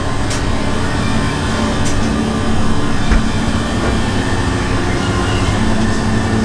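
Steady rumbling background noise with a low hum running through it and a few faint clicks.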